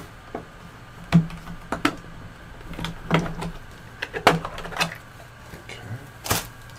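Clicks and knocks of the plastic case of a SparkFun Inventor's Kit as it is handled and its lid opened, about seven sharp knocks spread through, over a steady low hum.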